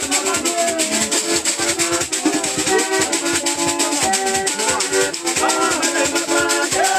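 Shaker rattles keeping a fast, steady beat under group singing and held chords, the music of a Malagasy ancestral ceremony.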